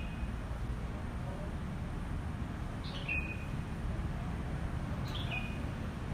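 A bird calling twice, each a short call that falls in pitch and ends on a brief held note, about two seconds apart. A steady low rumble runs underneath.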